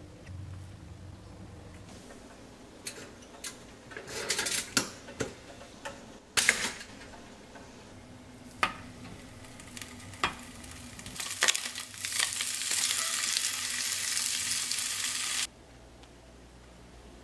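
Kitchen cooking sounds: scattered clinks and knocks of utensils against cookware, then about three seconds of food sizzling in a hot pan, which cuts off suddenly near the end.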